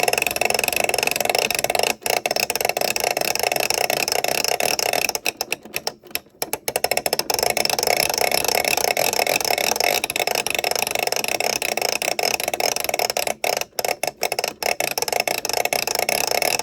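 Plastic toy microwave worked close to the microphone for ASMR: a continuous scratchy, rattling noise of rapid clicks, breaking off briefly twice.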